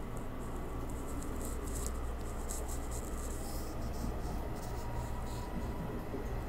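Steady low hum inside a Nishitetsu commuter train car, with a faint steady high tone and light scratchy ticks on top.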